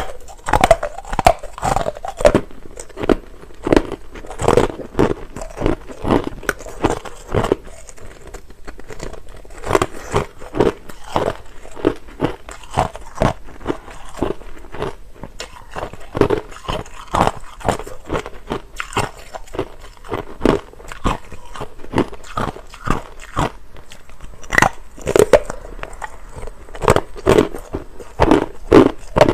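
Close-up crunching and chewing of clear, hard crushed ice: a steady run of sharp crunches, one to two a second, with short lulls about eight seconds in and again around the middle.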